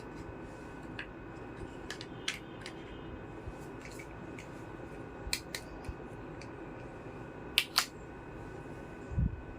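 Small plastic miniature kitchen-set pieces being handled, giving scattered light clicks and taps, with two sharper clicks in quick succession about three-quarters of the way through and a soft thump near the end, over a steady background hum.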